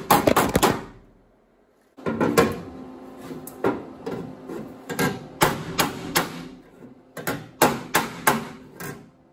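Body hammer striking steel sheet metal against a hand-held dolly, with a metallic ring after each blow. A quick run of blows in the first second is followed by a short pause, then slower, irregular blows of hammer-and-dolly work raising a new patch panel up level with the factory panel.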